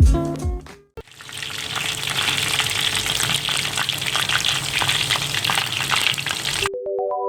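Prawn fritters frying in hot oil: a steady sizzle thick with small crackles. It starts about a second in, after a short music tail, and gives way to music near the end.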